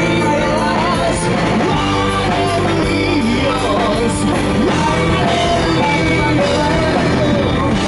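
Live rock band playing loudly, a lead vocalist singing a wavering melody over electric guitars and drums.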